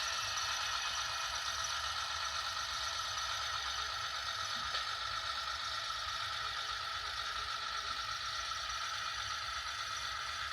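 Viessmann powered model railway freight wagon with DCC sound running along the track: a steady mechanical whir and rattle with a constant high tone, easing slightly toward the end.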